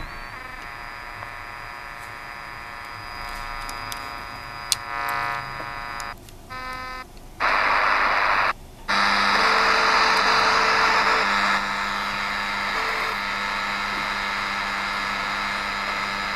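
Degen DE1103 shortwave receiver in SSB mode being tuned across the band. For about six seconds a buzz with many evenly spaced overtones comes through; this is the buzzing signal the owner found all across roughly 3 to 12 MHz. It then chops in and out as the frequency changes, and from about seven seconds in gives way to loud static hiss carrying steady whistle tones.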